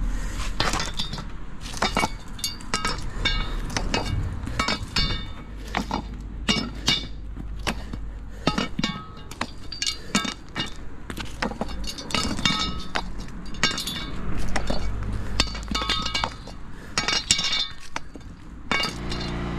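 Channel drain grates being lifted out of their drain channel and set down, clattering and clinking again and again, some knocks with a short ringing after them.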